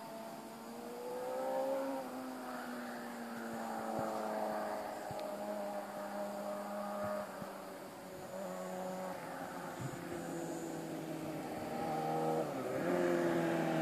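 Suzuki GSX-R600's inline-four engine running under way, its note rising, then slowly falling, with sudden shifts in pitch twice in the second half.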